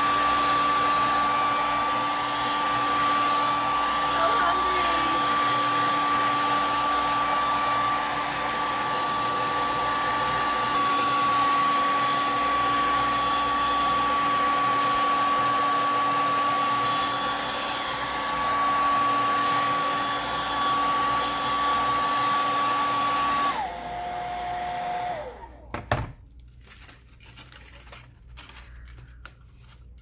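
Hand-held hair dryer running with a steady rush of air and a steady whine. About 23 seconds in, the whine drops to a lower pitch, and the dryer shuts off about a second and a half later. A sharp knock follows, then faint handling sounds.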